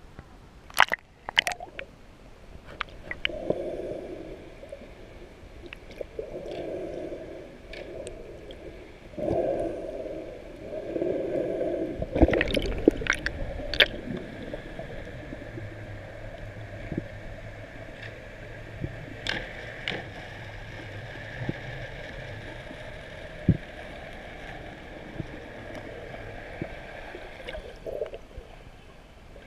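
Water sloshing and gurgling around an action camera's waterproof housing at and below the sea surface, with sharp clicks and knocks on the housing. Through the middle and later part a steady drone of a boat engine carries through the water.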